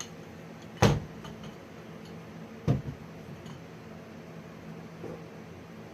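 Two sharp knocks, almost two seconds apart, from BMX parts and tools being handled while fitting the handlebars, over a steady low hum.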